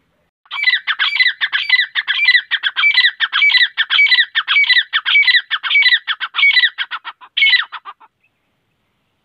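Grey francolin calling: a loud, rapid run of harsh repeated notes, each sliding down in pitch, about three a second for some seven seconds before it stops.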